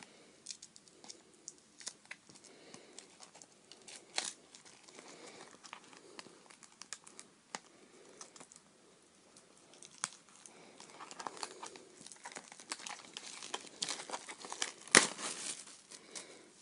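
Plastic wrapping on a CD album being torn open and crinkled by hand: scattered crackles and rustling that grow busier in the second half, with one sharp, loud crackle near the end.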